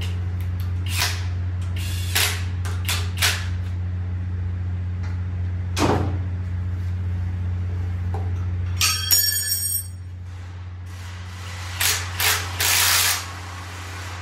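Engine-rebuild workshop sounds: light metal clicks and knocks of tools on an engine block over a steady low hum that stops about ten seconds in. A cordless drill/driver whirs briefly about nine seconds in, and a few short harsh bursts follow near the end.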